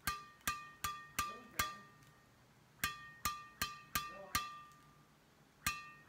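Freshly strung badminton racket (Apacs Nano 900 with Yonex BG80 string at 24 x 26 lbs) being slapped string-bed-first against the palm: sharp, ringing pings that sound extra crispy, the sign of a tight string job. Two runs of five quick taps with a short pause between, and a third run starting near the end.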